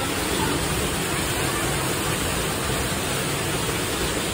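Mine-ride train cars rolling along the track: a steady rushing rumble with no clear rhythm.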